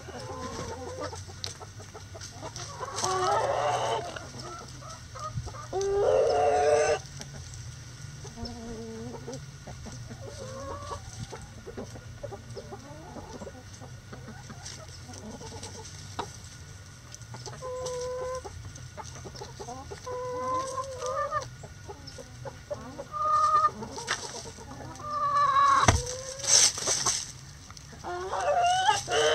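Backyard chickens clucking, with louder calls a few seconds in and again near the end, including a rooster crowing.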